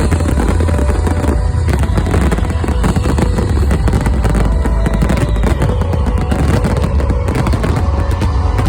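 Fireworks display going off, a dense run of rapid bangs and crackling over a constant deep rumble.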